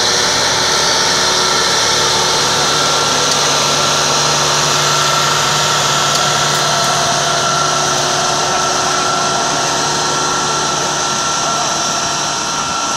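Kubota M135X tractor's diesel engine running steadily under load while pulling a seven-shank subsoiler, with a steady high whine over the engine note, easing slightly near the end as it moves on.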